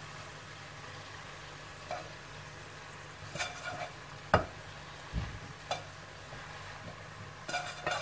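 Steady soft sizzle of the frying pan as cooked rice is tipped into it from a metal pot, with a few sharp metal clinks and knocks of the pot against the pan, the loudest about four and a half seconds in and a quick cluster near the end.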